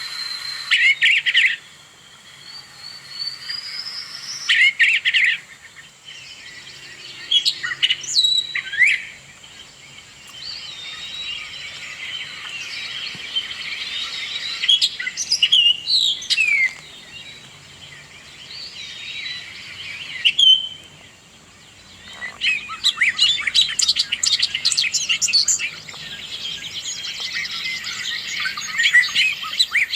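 Songbirds singing and chirping: separate loud bursts of sliding, high calls, with a rising whistled note near the start, then a dense run of rapid chirps for the last several seconds.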